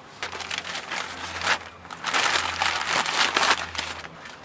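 A sheet of newspaper rustling and crinkling as it is handled and spread over the mouth of a clay pot, with several rustles that are loudest in the latter half.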